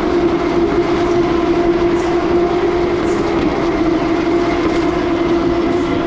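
A loud, steady engine drone holding one pitch throughout, with a few faint ticks over it.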